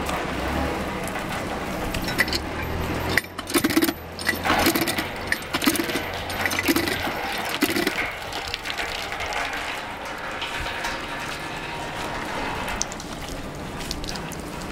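A young Weimaraner digging in damp dirt, its paws scraping in a run of about six strokes a few seconds in, then softer scuffing.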